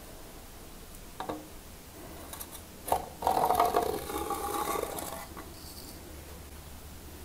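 A basalt rock sample dropped into a water-filled graduated cylinder: a sharp knock about three seconds in, then about two seconds of water splashing and churning as the rock goes down, dying away after about five seconds. A faint tap comes about a second in.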